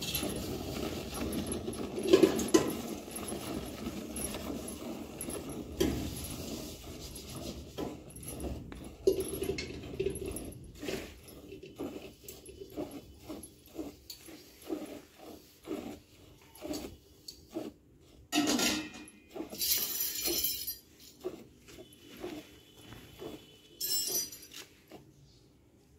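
A buffalo being milked by hand into a steel bucket: a long run of short squirts of milk hitting the pail in an uneven rhythm, with glass bangles jingling on the milker's wrists, louder in a few bursts near the end.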